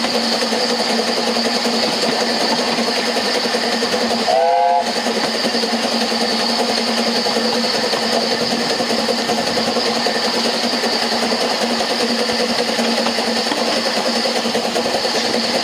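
Narrow-gauge steam train running steadily, heard from inside a carriage behind Double Fairlie locomotive no. 12, with a steady rumble and hum. About four seconds in, the locomotive's steam whistle gives one short blast of about half a second, several notes together that slide up at the start.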